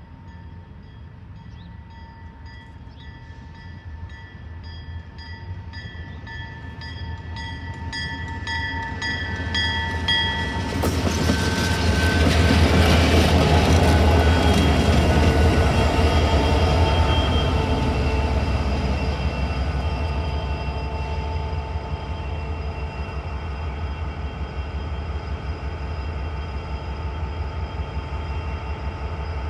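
CN diesel locomotives approaching with a steady horn growing louder, the horn stopping after about ten seconds. They then pass close by with a loud low engine rumble and wheel-and-rail noise, fading to a steady rumble as they move away.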